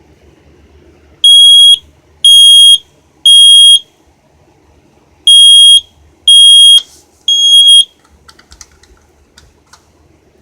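Smoke alarm sounding the temporal-three evacuation pattern: two groups of three loud, high-pitched beeps, each about half a second long, a second apart, with a longer pause between the groups. A few faint clicks follow near the end.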